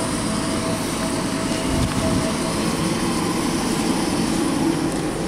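ED4M electric multiple unit running past along the platform: a steady noise of wheels on rails and traction equipment, with a faint steady whine that fades about halfway through.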